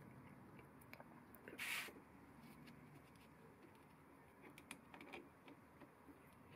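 Mostly near silence, broken by faint metal clicks and one short scrape about two seconds in, from a screwdriver bit and adjustable spanner working the axle screw and nut of a knurling wheel.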